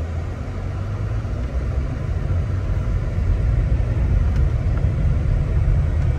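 Road noise inside a moving car: a steady low rumble of the tyres rolling over a brick-paved street, growing gradually a little louder.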